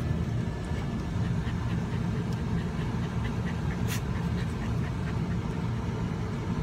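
A dog panting with quick, faint breaths over the steady low rumble of a Chevrolet Astro van's engine. There is one sharp click about four seconds in.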